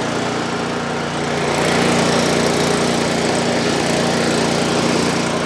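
Cub Cadet snowblower's small engine running steadily just after a pull start, on choke, its carburetor freshly cleaned to cure a no-start.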